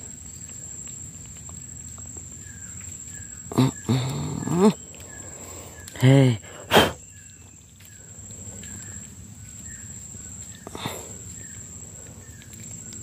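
Steady high-pitched drone of insects, with a faint short chirp repeating roughly twice a second. A man's voice sounds briefly twice near the middle, followed by a sharp click.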